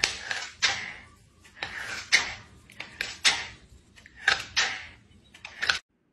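A cat batting at a plastic slipper: irregular hollow knocks and clatters, about two a second, cutting off near the end.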